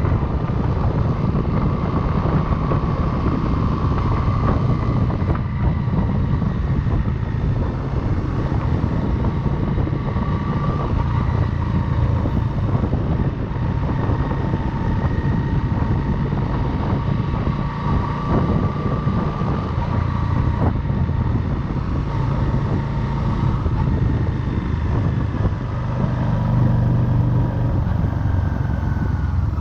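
Motorcycle engine running steadily while riding, heard from a chest-mounted camera, with wind rumbling on the microphone. The low rumble grows a little louder near the end.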